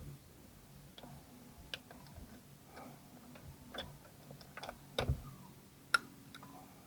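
Irregular light clicks and taps of hand work on the steering wheel and its airbag parts, plastic and metal being handled, with a louder knock about five seconds in and a sharp click about a second later.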